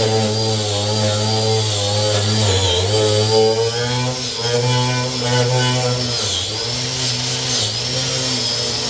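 Power tool spinning a wire ball brush against the car's steel floor pan, scrubbing off surface rust. Its motor note runs steadily but dips briefly a few times as the brush is pressed in, with a wavering high whine over it.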